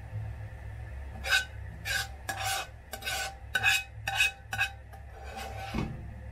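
Metal ladle scraping the inside of a wok, about ten quick strokes with a metallic ring, starting about a second in and stopping near the end.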